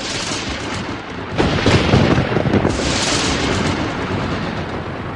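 Loud thunder rolling and crashing, surging about a second and a half in and again near three seconds.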